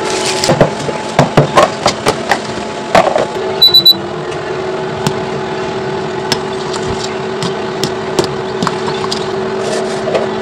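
A run of sharp clattering knocks, then a short high electronic beep about three and a half seconds in, after which an appliance hums steadily.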